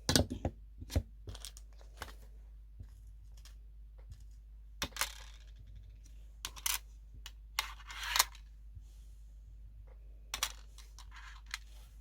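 Packing accessory orders by hand: sharp clicks and taps of small items being set down, with two longer bursts of rustling, crinkly packaging about five and eight seconds in.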